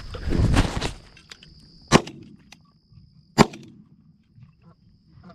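Two shotgun shots about a second and a half apart, after a second of rustling and handling noise at the start.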